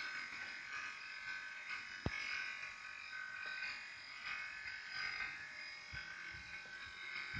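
A steady, high-pitched electric buzz with a wavering level, coming from a Renault car whose engine is switched off. The noise began after the car's air conditioning was serviced. There is a single sharp click about two seconds in.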